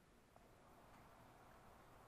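Near silence: faint room tone with a few faint, light ticks.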